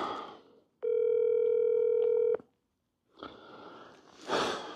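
Telephone ringback tone on an outgoing call: one steady ring of about a second and a half. A soft breathy rushing noise follows near the end.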